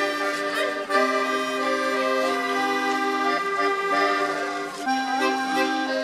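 Accordion music: a tune in long held notes over chords that change every second or two.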